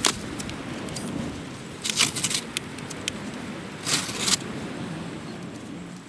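Small fireworks crackling: a sharp pop at the start, then clusters of quick crackles about two seconds and four seconds in, over a steady low background rumble.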